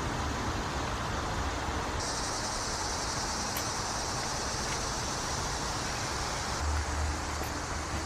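Outdoor background noise: a steady low rumble with an even high hiss that starts about two seconds in and stops about a second and a half before the end.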